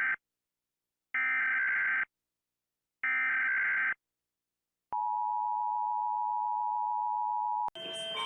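Emergency alert broadcast tones: three short, harsh data bursts about a second each, in the pattern of a SAME digital header, followed by a steady two-tone attention signal lasting about three seconds. The attention tone cuts off abruptly near the end as a different alert with several chiming tones begins.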